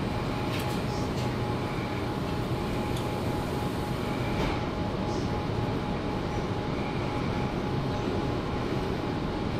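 Interior running noise of a Sydney Trains Tangara electric carriage moving off from a station: a steady rumble of wheels on track with a thin steady whine and a few faint clicks in the first few seconds.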